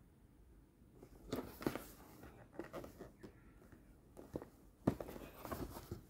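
Cardboard toy box handled and turned over in the hands: scraping and tapping of the cardboard in two bursts, one about a second in and one about five seconds in, with a few light knocks between.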